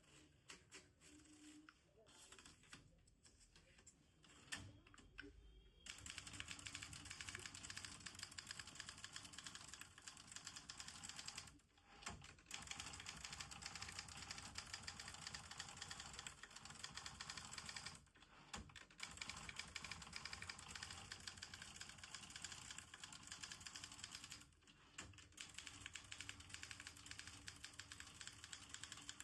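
Facit manual Hindi typewriter being typed on: a few scattered key strikes, then about six seconds in a fast, continuous run of keystrokes, broken by short pauses roughly every six seconds.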